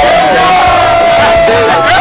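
Music with one long held note, mixed with a group of people cheering and shouting.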